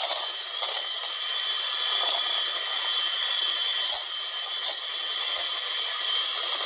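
Electric hand mixer running steadily at high speed, its beaters whisking cake batter in a bowl.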